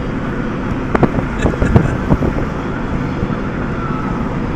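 Steady vehicle road noise, with a handful of short knocks and clicks between about one and two seconds in.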